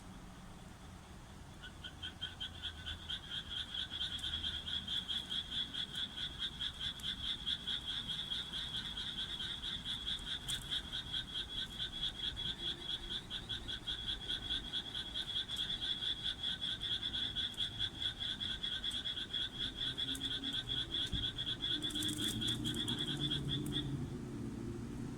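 A frog calling in one long unbroken series of rapid pulsed croaks, several a second, starting about a second and a half in and stopping shortly before the end.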